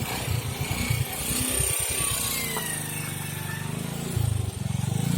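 Small motorcycle engine running while riding, with a pulsing exhaust note; it picks up about four seconds in.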